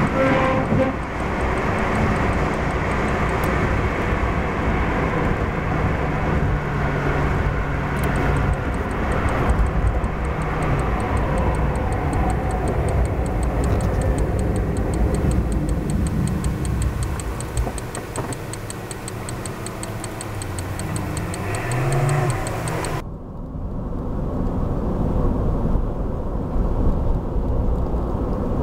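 A car driving along a motorway, with steady engine and tyre noise and a faint, fast regular ticking. The noise drops as the car slows in traffic, then the engine note rises as it pulls away. The sound changes abruptly near the end.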